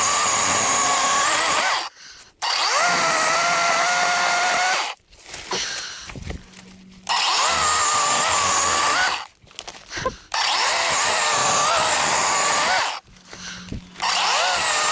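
DeWalt 20-volt cordless chainsaw with a 12-inch bar cutting branches into firewood pieces. It runs in five bursts of about two seconds each, with short pauses between them, and its motor whine wavers and dips in pitch during each burst.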